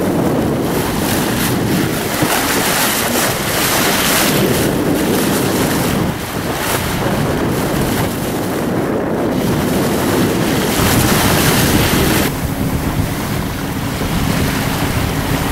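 Wind buffeting the microphone over the rush of sea water along the bow of a sailing yacht under way. About twelve seconds in, the hiss suddenly turns duller.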